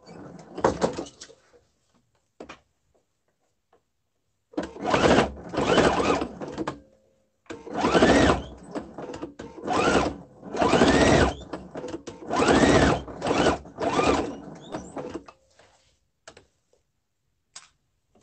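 Sewing machine fitted with a walking foot stitching in a series of short runs of about a second each, with brief pauses between. The motor speeds up and slows down on each run. After a short run at the very start and a lull, the runs begin about four seconds in and stop a few seconds before the end.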